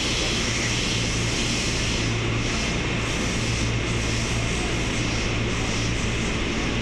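KRL Commuter Line electric train standing at the platform, its onboard equipment giving a steady drone with a low hum.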